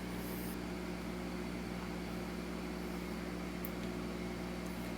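Steady low hum of background room noise, with a few faint brief rustles of handling.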